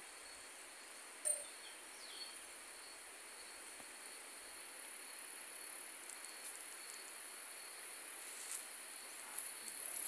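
Insects buzzing in a faint, steady, high-pitched drone that grows slowly louder, with one brief chirp about a second in.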